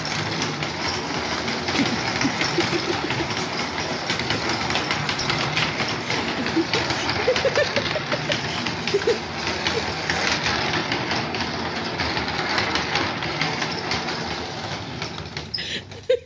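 Plastic baby walker's wheels rolling and rattling over a tile floor as it is towed along, a dense steady clatter that stops abruptly shortly before the end.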